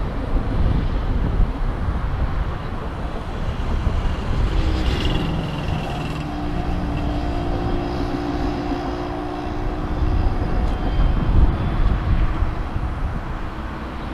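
Jet airliner engines running, a steady low rumble with a set of steady engine tones that comes in about five seconds in and fades near the end, mixed with wind on the microphone.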